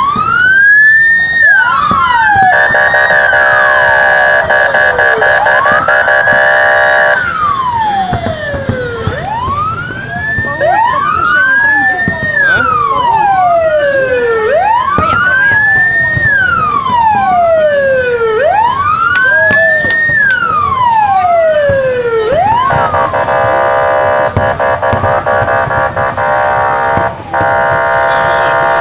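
Loud electronic siren wailing, its pitch rising and then falling again roughly every four seconds, with fainter overlapping sweeps behind it. A steady, many-toned blare takes over from about 2.5 to 7 seconds and again near the end.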